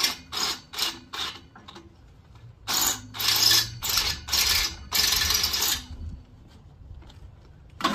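Hand drill boring into a hardened steel bolt, run dry without cutting oil. It goes in short bursts of a few a second at first, then a longer grinding run that stops about six seconds in.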